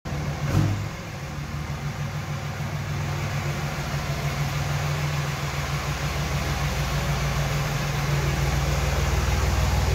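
A 2006 Dodge Ram 2500's 5.9-litre inline-six Cummins turbo-diesel running at low idle speed as the pickup rolls slowly in, a steady low hum that grows gradually louder as it comes closer. A short thump comes about half a second in.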